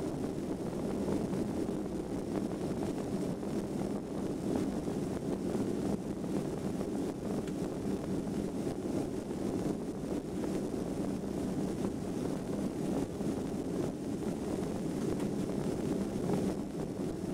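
Steady low rumble of a Boeing 757's twin jet engines and airflow, heard from inside the passenger cabin as the airliner taxis on the ground. The sound holds even throughout, with no spool-up.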